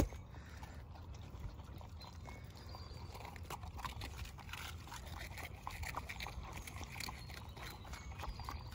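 Puppies lapping and slurping from a rubber pan, a faint, irregular run of small wet clicks and splashes.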